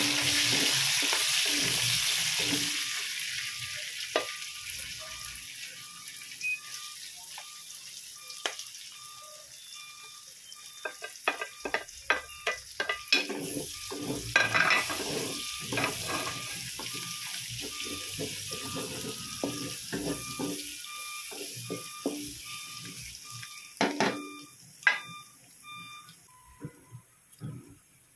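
Sliced onions sizzling in hot oil in a large pan. The sizzle is loud at first and dies down over several seconds. Then garlic fries as a wooden spatula stirs and scrapes the pan, with many sharp clicks and scrapes, and a few louder knocks near the end.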